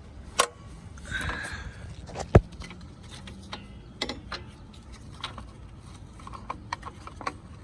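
Hand work on a car's hood latch and release cable: scattered clicks and scrapes of plastic and metal parts, with one sharp knock about two and a half seconds in.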